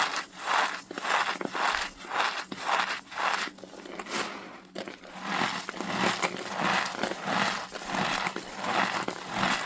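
Compacted cornstarch being crushed, a dry crunching in repeated squeezes about two a second, with a short pause around the middle.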